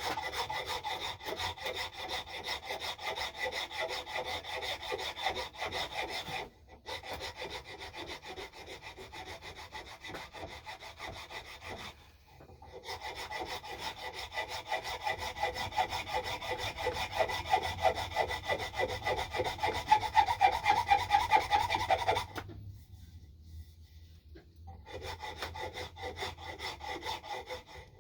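A file scraping back and forth over a wooden axe handle in quick, even strokes, taking down a high spot as the handle is shaped. The strokes stop briefly about six and twelve seconds in, and for a couple of seconds near the end.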